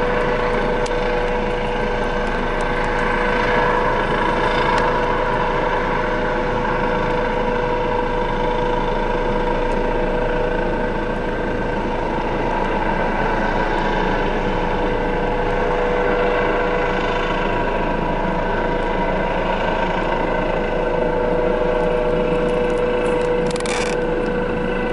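Medical air ambulance helicopter taking off at full power, climbing straight up: a steady engine whine over dense rotor and wash noise, holding even throughout.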